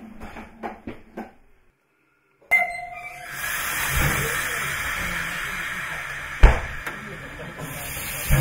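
Steady hiss of steam from a steam locomotive standing at the platform, heard from inside a wooden railway compartment, growing stronger near the end. A few light knocks come before it, and a heavy thump about six seconds in is the loudest sound.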